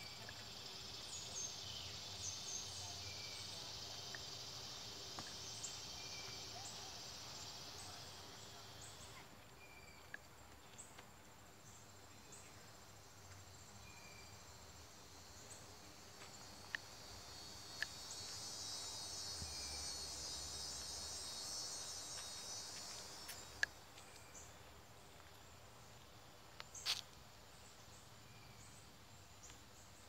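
A chorus of insects buzzing high and fine, swelling for the first several seconds, fading, then swelling again for several seconds past the middle. A few sharp clicks are scattered through it, the loudest near the end.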